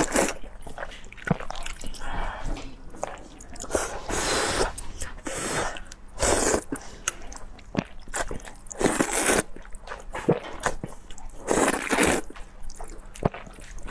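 Close-up eating sounds: noodles in spicy broth slurped up in several drawn-out slurps, with wet chewing and mouth clicks between them.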